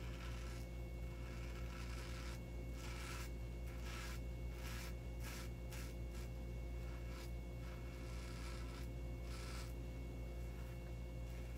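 Razor blade scraping through lather and stubble in a series of short strokes, some in quick runs, over a steady low hum.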